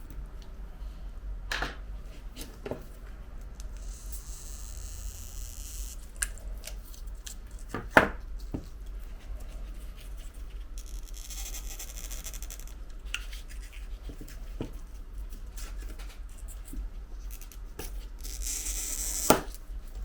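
Small scraping and tapping sounds of work inside an opened iPhone 11 Pro Max while its battery adhesive strips are being pulled loose: three spells of raspy hiss and a few sharp clicks, the sharpest about 8 seconds in and just before the end, over a steady low hum.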